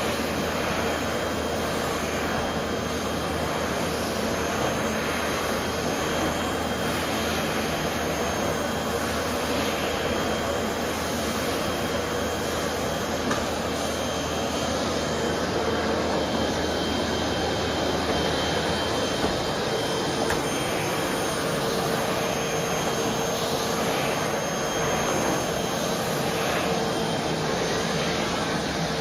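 Vacuum cleaner running steadily while vacuuming a floor: a constant rushing airflow with a steady motor whine.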